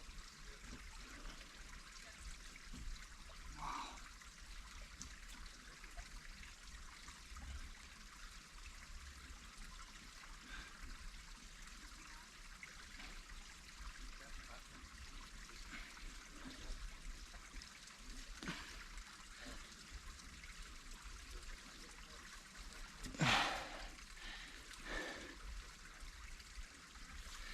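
Faint, steady trickle of running water, with one brief louder sound near the end.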